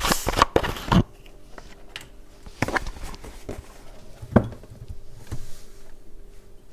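Bathing sand pouring into a small jar for about the first second, then scattered clinks and knocks of containers being handled, with one sharp knock about four and a half seconds in.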